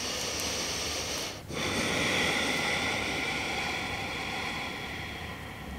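A person's slow, audible breathing close to a body-worn wireless microphone: one breath, a brief break about a second and a half in, then a long breath that slowly fades.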